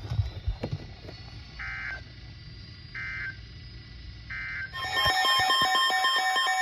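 Three short digital data bursts of the weather radio's SAME coding, about a second and a half apart, marking the end of the special marine warning message. About five seconds in, a loud electronic alert of several beeping tones starts, announcing the next warning.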